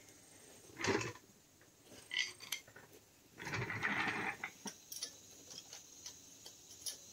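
Scattered light clicks and taps of hand tools and metal parts on a truck's rusty front brake and suspension. There is a short scuffing noise about a second in and a longer rubbing, scuffing noise around the four-second mark.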